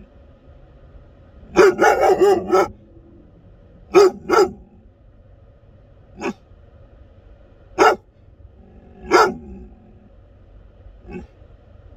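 American Akita puppy barking inside a car: a quick run of about four barks, then a pair, then single barks a second or two apart, the last one faint, over a steady low hum.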